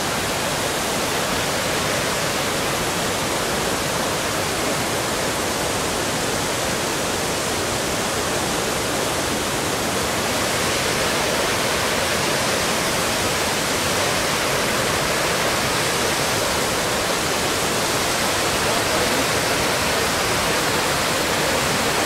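Waterfall and fast-flowing stream rushing steadily, an even wash of water noise with no breaks.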